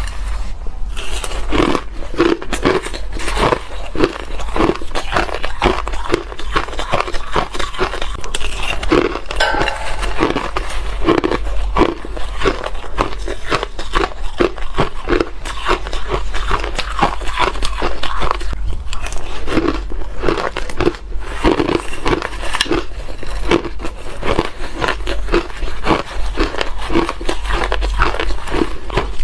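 Soft shaved ice being chewed and crunched close to lapel microphones, a dense run of quick crunches with no real pause, mixed with a metal spoon scooping into the ice in a glass bowl.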